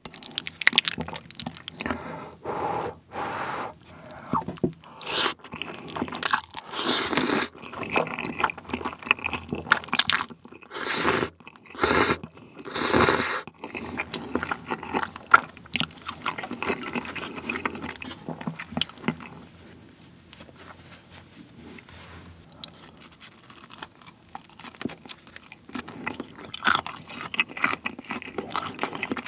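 Close-miked eating of creamy spicy tteokbokki with linguine and bacon. There are several loud noodle slurps in the first half, each about half a second to a second long, then quieter wet chewing with soft clicks.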